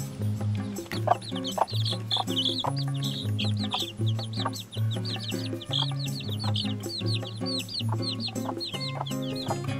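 Baby chicks peeping, many short high peeps in quick succession starting about a second in, with a mother hen clucking low among them, over background music.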